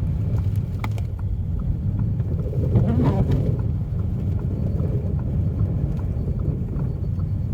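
Steady low rumble of a car's engine and tyres, heard from inside the cabin while driving on a snow-covered road, with a few faint ticks.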